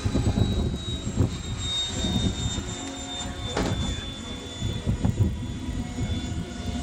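Radio-controlled model F-16 jet flying overhead: a steady high engine whine that slowly drops in pitch, over a gusty low rumble.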